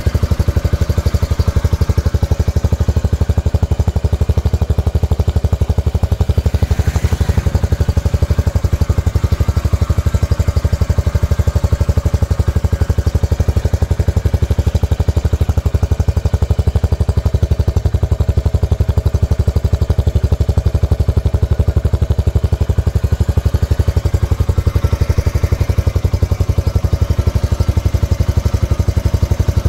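Yamaha YB125Z DX's 125 cc single-cylinder four-stroke engine idling steadily, with an even, low exhaust pulse.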